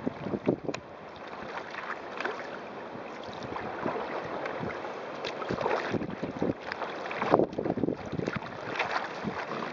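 Strong wind buffeting the microphone over water rushing and splashing along the hull of a sailing kayak moving through choppy water, with uneven louder splashes and gusts throughout.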